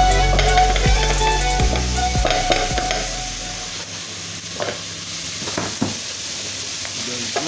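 Beef frying and sizzling in a pot, with a few short knocks near the end. Background music with a beat plays over the first half and fades out about three seconds in.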